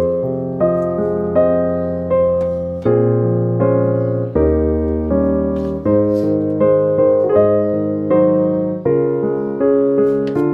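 Background piano music: a slow melody of struck notes, each ringing and fading, over held lower notes.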